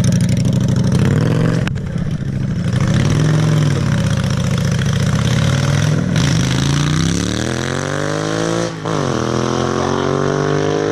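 A vehicle engine running with an uneven, wavering pitch, then accelerating: its pitch climbs steadily, drops sharply at a gear change about nine seconds in, and climbs again.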